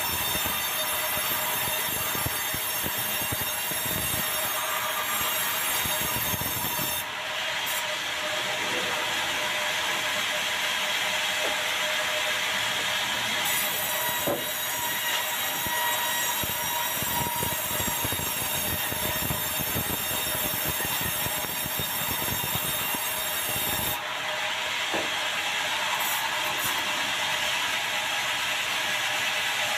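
Sawmill band saw cutting lengthwise through a dry, very hard bengkirai (yellow balau) log: a steady whine with several high tones over the grinding of the blade in the wood. The sound changes suddenly about 7 and 24 seconds in.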